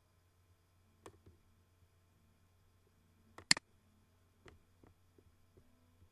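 Computer mouse clicking: a few scattered sharp clicks, the loudest a quick double click about three and a half seconds in, over a faint low hum.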